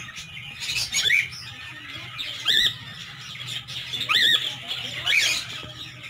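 Cockatiels in a colony aviary calling: about four loud arched squawks a second or so apart, over fainter high chirping and a low steady hum.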